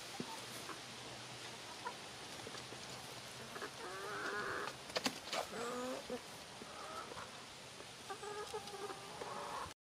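Chickens clucking, with a run of short calls starting a little past a third of the way in, and two sharp clicks around the middle.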